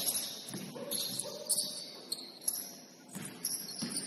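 Basketball shoes squeaking in short high chirps on a gym court, with a basketball bouncing twice near the end.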